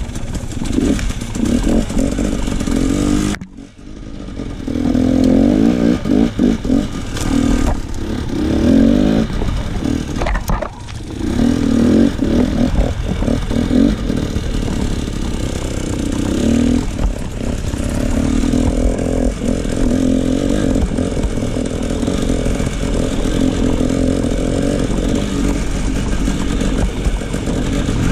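KTM enduro dirt bike engine being ridden, revving up and down with the throttle, with the sound dropping away briefly about three and a half seconds in and again around ten seconds.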